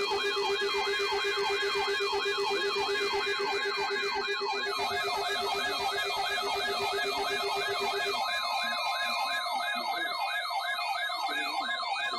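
Weather radio receivers' alert alarms set off by the weekly test: a warbling siren sweeping up and down about two and a half times a second over steady alarm tones. A lower tone gives way to a higher one partway through.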